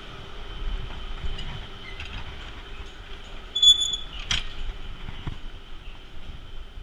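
Alpine coaster sled rolling along its metal rails with a steady rumble and clatter as it leaves the start station. A short high beep sounds about three and a half seconds in, followed by a sharp clack.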